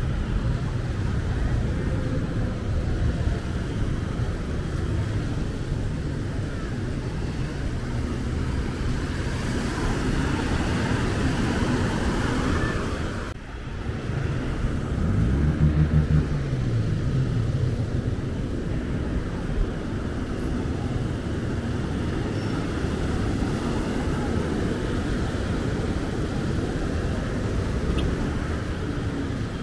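Steady motor traffic noise, with an engine passing about halfway through, its pitch rising and then falling as it goes by.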